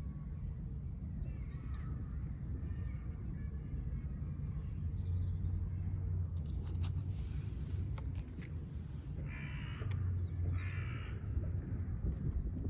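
A crow cawing twice, two harsh calls close together near the end, over a steady low hum with scattered soft clicks.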